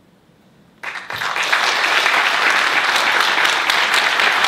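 Audience applause breaking out about a second in, a sudden burst that quickly builds to steady, loud clapping from a large crowd.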